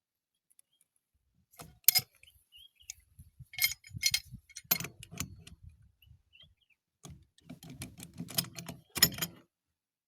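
Irregular bursts of sharp metallic clinks, knocks and scrapes, bunched in three spells about two seconds, four to five seconds and eight to nine seconds in.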